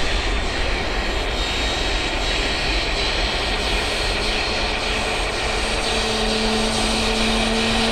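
Jet airliner engines running, heard as a steady rush, likely the Boeing 737-700's CFM56-7B engines. About five seconds in a humming tone comes in and rises slowly in pitch as the engines begin to spool up.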